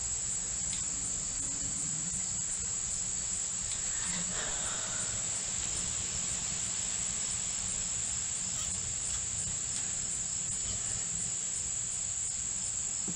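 Steady high-pitched trilling of an outdoor insect chorus, typical of crickets.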